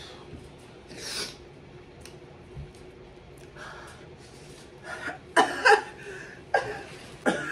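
A woman breathing hard and hissing air through her mouth against the burn of extremely hot sauce, with a few short, louder voiced gasps in the second half.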